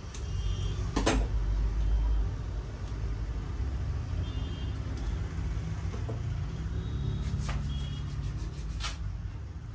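A steady low rumble with a few sharp clicks or taps: the loudest about a second in, then others near the middle and toward the end.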